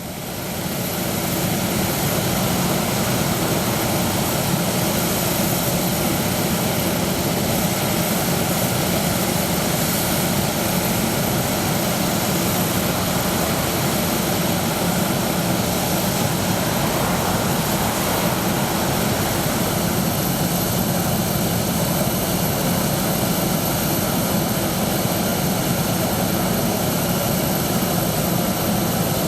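Jet aircraft engines running steadily: a constant rushing noise with a low hum underneath, rising over the first couple of seconds and then holding level.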